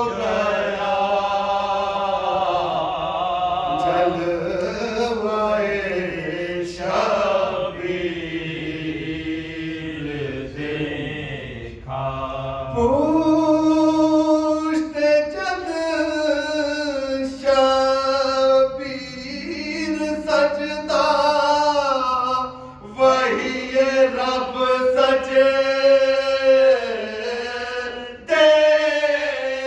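Unaccompanied male voices chanting an Urdu Shia devotional recitation: a lead reciter sings the lines in long, sliding, held notes while two men beside him join the tune.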